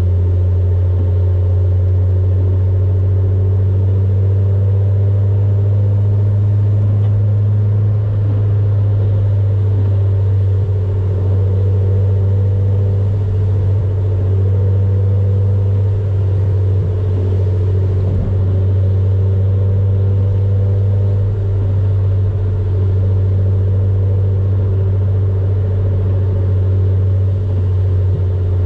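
Honda Civic EK coupe cruising, heard from inside the cabin: a steady low engine and road drone, with a single thump a little past the middle.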